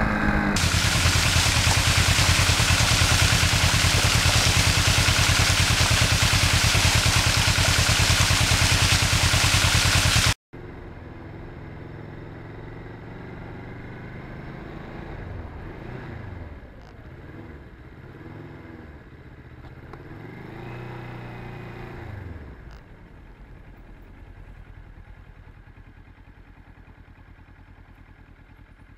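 Motorcycle engine running at steady road speed under a loud rush of wind on the microphone. About ten seconds in it cuts abruptly to a much quieter engine that rises and falls in pitch as the bike slows and speeds up at low speed, then settles lower and steadier toward the end.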